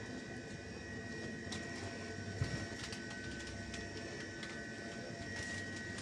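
Steady hum of supermarket refrigerated display cases, with two faint high whines held throughout and a soft knock about two and a half seconds in.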